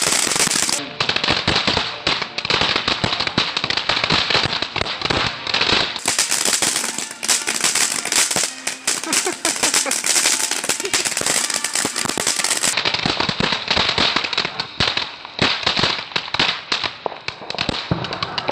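Ground-level consumer fireworks going off: a dense, rapid crackle of many small pops that keeps up without a break.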